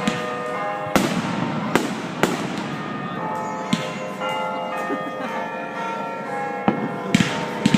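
Fireworks going off: sharp bangs about a second in and twice more soon after, a quieter stretch, then a quick run of bangs and crackles near the end.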